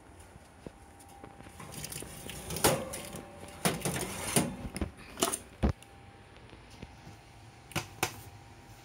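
Metal cake pan clanking and scraping against an oven's wire rack as it is pulled out with an oven mitt: a run of sharp knocks and rattles in the middle, then two more knocks near the end.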